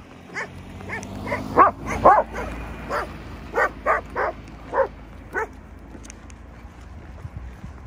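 An Akita dog giving a run of about ten short, high barks, stopping about five and a half seconds in.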